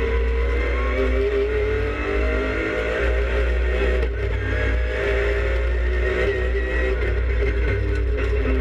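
Race car engine heard from inside the stripped, roll-caged cabin, its revs rising and falling as the car is driven around the track, over a heavy low rumble of road and body noise.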